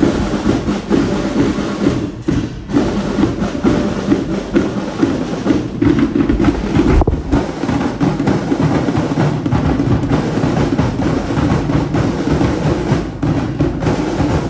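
Marching band drums playing a steady march beat, with many quick hits.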